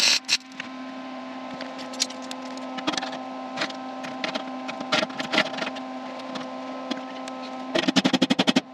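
Pause between MIG tack welds on sheet metal: scattered clicks and knocks as steel clamps and the panel are handled, over a steady hum. Near the end comes a rapid string of about ten loud crackling pulses from the MIG welder tacking the panel.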